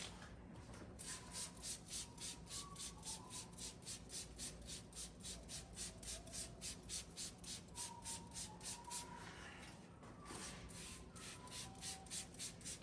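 Bleach being sprayed from a spray bottle in rapid squirts, about four a second, stopping about ten seconds in, with faint short squeaks.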